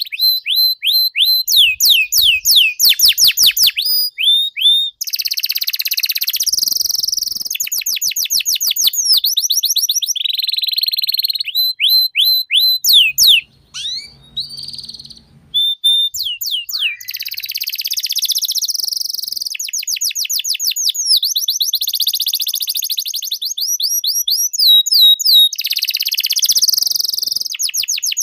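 Domestic canary singing a long, vigorous song of fast trills of repeated sliding notes, buzzy rolls and short held whistles, with a brief break about halfway through.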